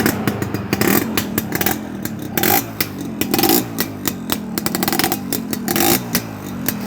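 Motorcycle engine running, its throttle blipped repeatedly so the sound swells and falls about once a second, with many sharp cracks throughout.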